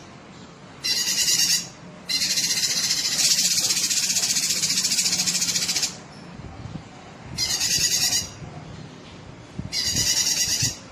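Cucak kinoi singing in rapid, high trilled bursts: four phrases, the second and longest lasting nearly four seconds, with short pauses between them.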